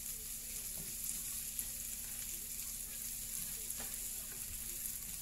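Prawns and sliced onion sizzling steadily in a frying pan as they are stir-fried with a spatula, with a few faint scrapes and taps of the spatula.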